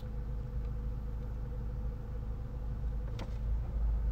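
A steady low mechanical hum with a faint steady tone above it, and a brief click about three seconds in.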